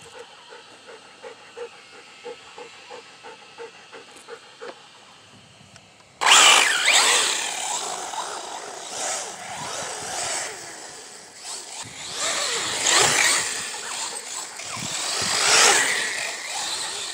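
Arrma Typhon 6S RC truggy's brushless motor driving hard across dirt and grass, its whine sweeping up and down in pitch as it accelerates and slows, with tyres throwing dirt. It is geared down on a 12-tooth pinion to keep the motor from overheating on 6S. It starts suddenly about six seconds in, after a quiet stretch with faint ticks.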